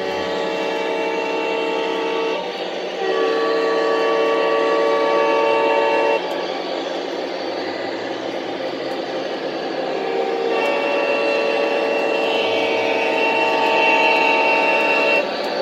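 Lionel O-gauge model diesel locomotive's onboard sound system sounding its multi-chime horn in three long blasts, with a gap of about four seconds in the middle filled by diesel engine rumble and running noise as the train approaches.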